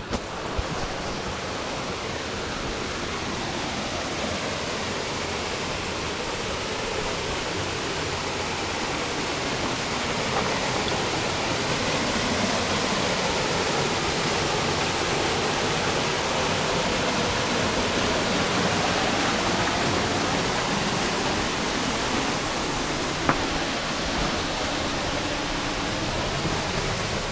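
Steady rushing of a small waterfall, about 12 feet high, pouring into a deep plunge pool, heard close by. It swells slightly about ten seconds in, and there is one brief click near the end.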